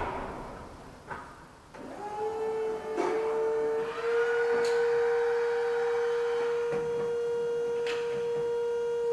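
Supercharged Honda K20 engine in a Civic coming to life about two seconds in: a steady whine that rises briefly in pitch, then holds at idle.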